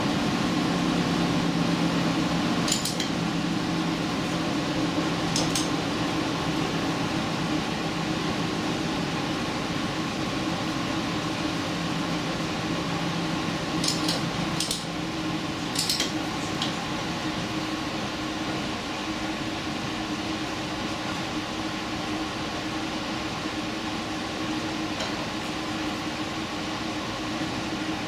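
Steady running noise of an express train on the move, heard from inside, with a low hum that fades about a third of the way in. A handful of light clinks and rattles break in, about three seconds in, a few times around the middle and once more near the end.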